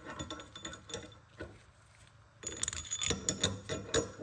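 Steel bolts and plates of a ball joint removal tool clinking and rattling against each other as they are fitted together by hand. A run of rapid metallic clicks and ringing chinks starts about halfway through.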